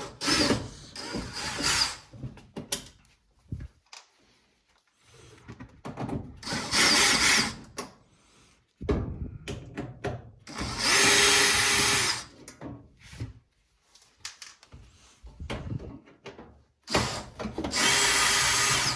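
Power drill-driver running in three short bursts of about a second each, most likely backing out the screws that hold the dryer's panels and control board. Quieter clicks and handling noise fall between the bursts.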